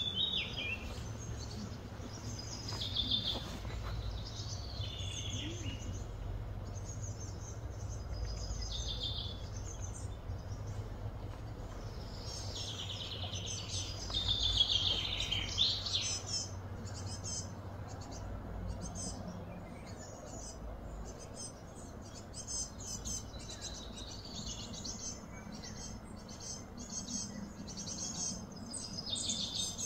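Birds chirping and calling over and over, in short high calls with a busier run of falling chirps about halfway through, over a steady low hum.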